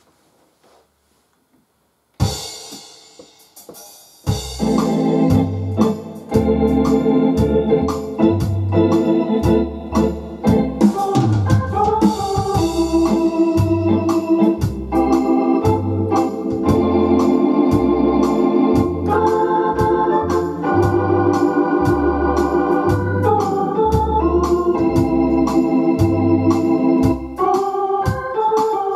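Hammond M44 Exceed organ played in an easy-listening fox-trot style, with chords, melody and a regular bass line under a steady beat. It starts about two seconds in with an opening chord, and the full arrangement comes in about two seconds later.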